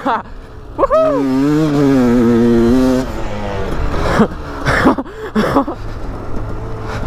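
KTM 85 SX single-cylinder two-stroke dirt bike engine under throttle: the revs climb about a second in and hold high for about two seconds, then fall away into several short throttle blips before it settles.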